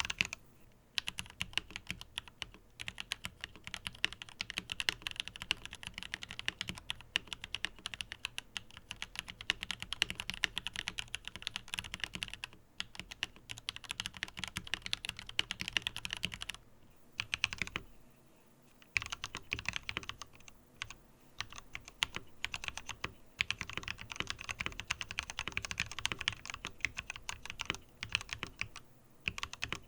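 Continuous fast typing on a Tom680 mechanical keyboard with plastic keycaps, a quick run of clacking keystrokes. It breaks off briefly a few times, about halfway through and near the end.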